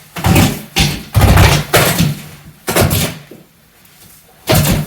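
Old wall-to-wall carpet being pulled up off the floor: a run of loud thuds and rips, six or seven in quick succession, with a pause of about a second before the last one.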